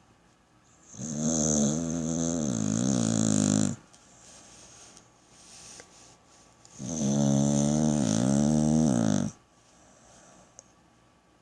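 Pit bull snoring: two long snores of about two and a half seconds each, with a wavering pitch, and quiet breathing in the gap between them.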